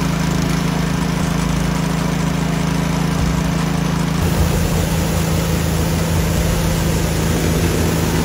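Pressure washer running with a steady motor hum under the hiss of high-pressure water. The upturned rotary surface cleaner's spinning jets are spraying the underside of a pickup truck.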